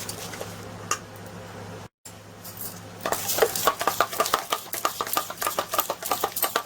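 Pancake batter being whisked in a bowl: fast, rhythmic strokes of the whisk clattering against the bowl, starting about three seconds in after a brief dropout. Before that, only a few light clicks over a low hum.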